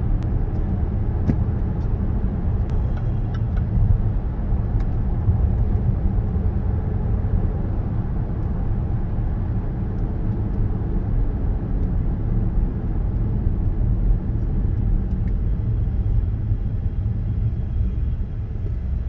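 Supercharged Range Rover driving, heard from inside the cabin: a steady low rumble of road and drivetrain, carrying the small, not loud grinding noise that comes on with sudden turns and lane changes. The owner suspects the electric power-steering rack.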